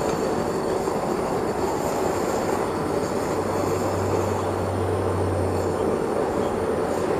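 Steady mechanical roar of a running machine, with a low hum joining in for a couple of seconds in the middle.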